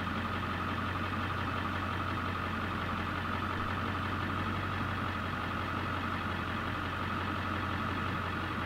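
Vehicle engine idling steadily: an even, unchanging low hum.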